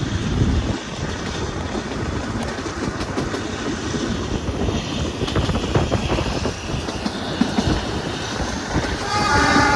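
Narrow-gauge Kangra Valley toy train running along the track: a steady rumble with irregular knocks from the wheels. About nine seconds in, the locomotive's horn starts sounding a steady chord.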